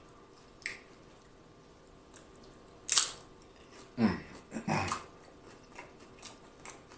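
A man chewing a mouthful of crunchy nacho chips, with small mouth clicks throughout. About three seconds in he gives a sharp puff of breath, then two short falling "ooh" sounds through pursed lips as the heat of a hot jalapeño hits.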